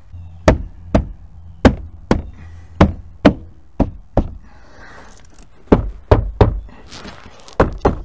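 Plastic door trim panel of a 2009 Hyundai Elantra being struck by hand to snap its retaining clips into the door: about a dozen sharp knocks at uneven intervals, with faint scraping between.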